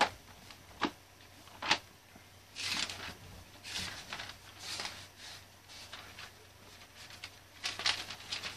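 Thin paper pages rustling as a Bible is leafed through, with a few sharp taps in the first two seconds and then a short rustle roughly once a second.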